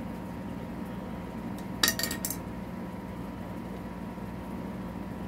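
A short run of quick metallic clinks about two seconds in, from small metal parts or a tool knocking together while fasteners are taken off the e-bike's rear wheel. A steady low hum runs underneath.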